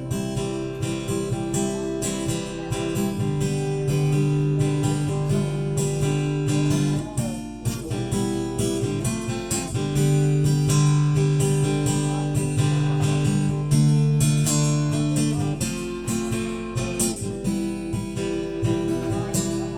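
Acoustic guitar strummed steadily through chord changes, an instrumental break between sung verses.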